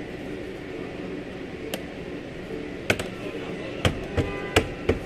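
A Ford Taurus's plastic door trim panel being struck with a gloved hand to seat it onto the door. About seven sharp knocks, one at a time, most of them in the last two seconds.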